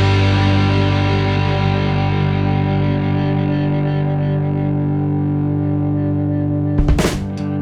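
Background rock music: a distorted electric guitar chord rings out and slowly fades, then drum hits come in near the end.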